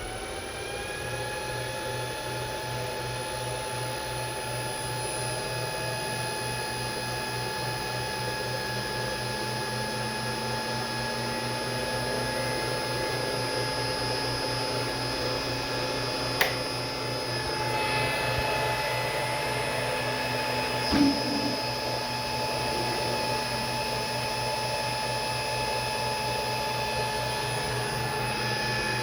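Electric motor driven by a freshly repaired LS iS7 inverter (VFD), whining as it ramps up in speed at the start and then running at a steady speed with a steady multi-tone whine. A sharp click sounds about 16 seconds in and a short knock about 21 seconds in.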